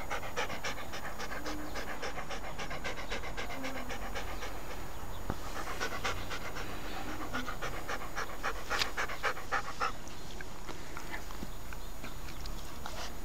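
Siberian husky panting open-mouthed in a rapid, even rhythm.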